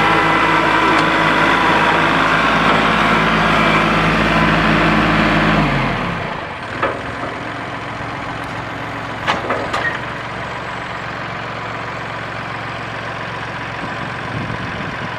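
Kubota compact tractor's diesel engine running steadily at working speed. About six seconds in it drops in pitch and settles to a quieter steady run, with a few short knocks.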